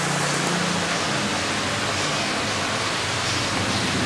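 A steady, even hiss with a faint low hum underneath and no distinct clicks or knocks.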